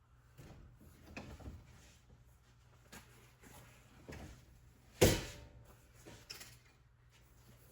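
Rustling and handling of upholstery material, then one sharp, loud strike about five seconds in as a hole is punched through the material, with a few lighter knocks around it.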